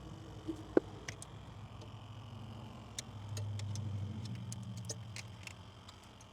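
Faint scattered clicks and ticks from a wiring harness being moved and handled by hand in an engine bay, with one sharper click about a second in, over a low hum that swells about three seconds in and fades near the end.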